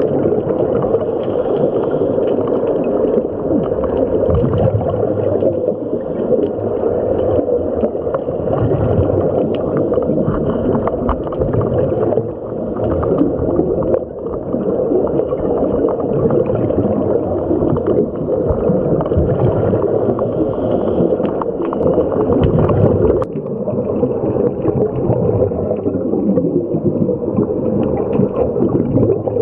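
Underwater sound heard through a camera housing: scuba regulator exhaust bubbles gurgling and rumbling steadily, muffled and without highs. The sound shifts abruptly about two-thirds of the way through.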